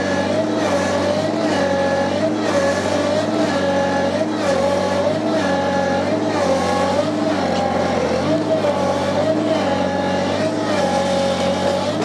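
Ventrac 4520 compact tractor's 24 hp three-cylinder Kubota engine working under load as its front grapple bucket pushes against a tree stump. Its pitch dips and recovers in a steady rhythm about one and a half times a second.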